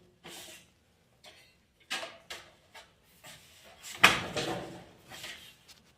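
Parts being handled during a heater repair: a series of scattered clunks and scrapes, with the loudest knock about four seconds in.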